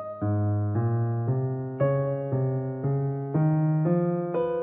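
Background music: sustained keyboard chords that move to a new chord about every half second.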